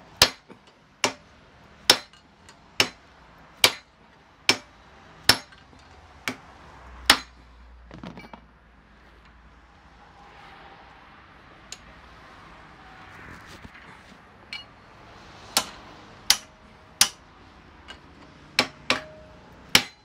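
Hammer blows on a steel chisel held in locking pliers against a CV joint on a drive axle clamped in a vise, trying to drive the joint off the shaft. About nine sharp metallic strikes come a little under a second apart. After a pause of several seconds, another string of strikes starts near the end.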